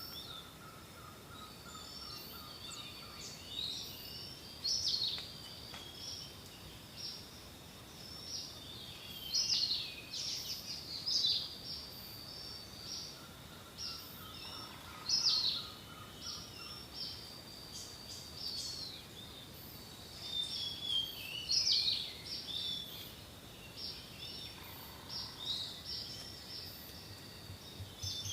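Songbirds chirping and whistling in short high calls, over a faint steady high tone. Twice, a faint run of evenly spaced, lower repeated notes comes in: once near the start and once about halfway through.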